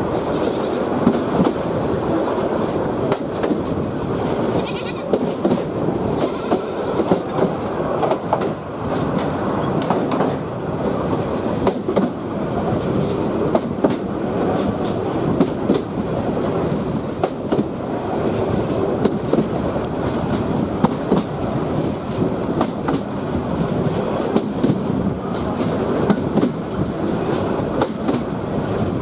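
Bangladesh Railway train running, its wheels clattering over the rails in a steady rumble broken by many irregular clicks and knocks. A faint, brief high squeal comes a little past halfway.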